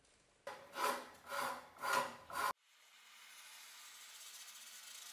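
A hand file scraping in four strokes about half a second apart, which stops abruptly. Then a small gas blowtorch hisses steadily and grows slowly louder as its flame chars the wooden axe handle.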